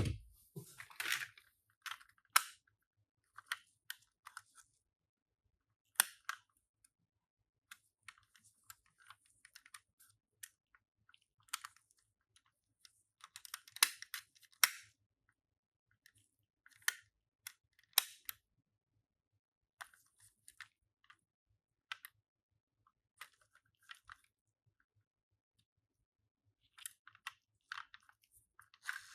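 Die-cast toy ambulance minicars being handled: scattered light clicks and taps with silences between them, a few louder ones, one about six seconds in and a short cluster near the middle.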